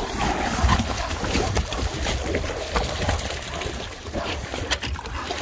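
Pool water splashing and sloshing as dogs paddle through it, with a few sharper splashes along the way.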